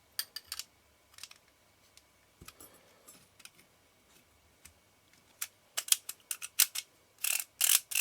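Small metal parts of an Ai-Nikkor 135mm f/2 lens being handled and fitted. Scattered light clicks give way, a little over halfway through, to a quicker run of sharp clicks and short rasping scrapes that are loudest near the end.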